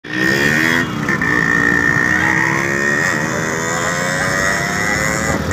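Motorcycle engine running under way, its pitch climbing steadily as it gathers speed, with a steady high whine alongside.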